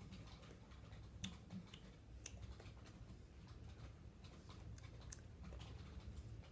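Near silence: low room hum with a few faint, scattered clicks, the loudest about a second in.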